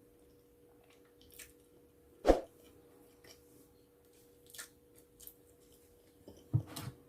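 Close-up mouth sounds of someone eating pizza: scattered wet smacks and small clicks of chewing, with one louder knock about two seconds in and a low thud near the end.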